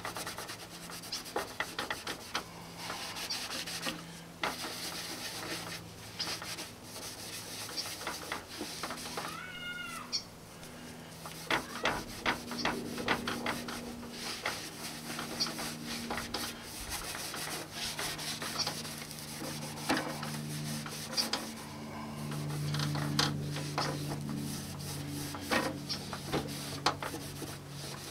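A cloth shop rag, damp with carburetor cleaner, is rubbed and buffed in short scrubbing strokes over a cloudy plastic headlight lens, polishing the oxidized plastic smooth. One brief rising-and-falling squeal comes about ten seconds in.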